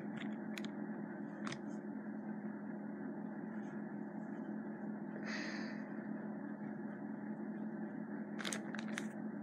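Steady low room hum, with a few faint handling clicks and one brief plastic rustle about five seconds in, as gloved hands handle a clear plastic bag of bubble toy parts.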